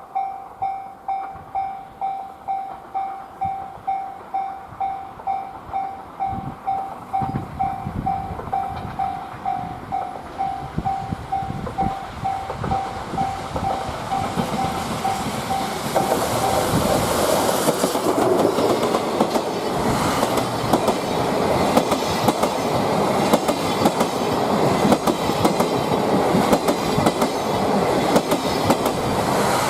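A Japanese level-crossing alarm rings at about two strokes a second. The C57 180 steam locomotive and its 12-series coaches approach, and their noise grows until it covers the bell about halfway through. The train then passes close, with a rapid clatter of wheels over the rail joints.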